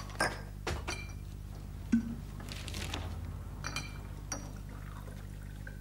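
Glassware and crockery clinking as they are handled at a bar counter: several light chinks with brief ringing, and one louder knock about two seconds in, over a steady low hum.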